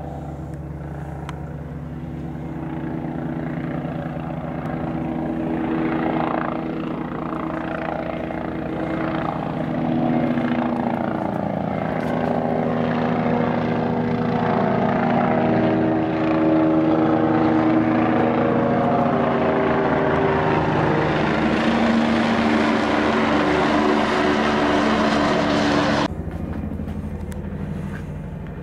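Helicopter flying over, its rotor and engine sound building steadily louder as it approaches, the tones sliding in pitch as it passes. The sound cuts off abruptly near the end, leaving a fainter drone.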